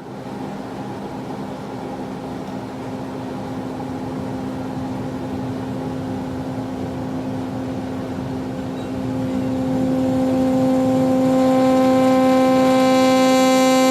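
Analog modular synthesizer oscillator tone through a state-variable filter's low-pass output, its cutoff modulated by white noise: a steady low pitch with a rough, hissy noise laid over it. About nine seconds in it grows louder and brighter as more upper harmonics come through.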